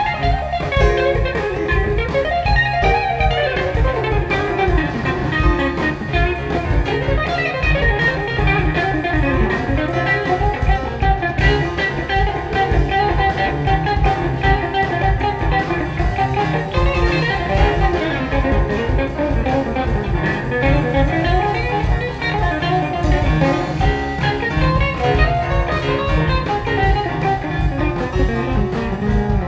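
Live jam band playing: a guitar lead of quick runs sweeping up and down over drums, bass guitar and keyboard, with a bluesy feel.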